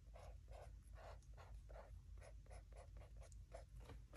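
Faint, quick strokes of a Tombow Fudenosuke twin-tip brush pen's gray tip hatching on painted paper, about three scratchy strokes a second. The owner thinks the gray tip has dried out.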